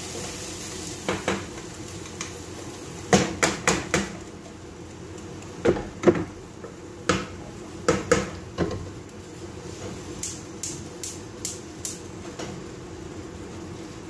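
Metal spoon knocking and scraping against a steel cooking pot as drained rice is tipped and tapped back into the pot, a run of irregular clanks that grow lighter after about ten seconds. A steady low hum runs underneath.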